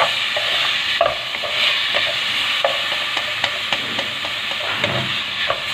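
Chopped tomatoes, green chilli and onion sizzling in hot oil in a metal kadai, stirred with a wooden spatula that knocks and scrapes against the pan every half second or so.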